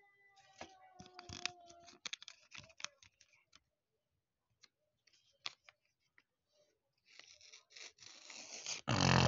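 Sheets of paper being handled and folded: scattered taps and short crinkles, then a longer rustle that grows louder near the end. A held tone that sinks slightly in pitch is heard during the first two seconds.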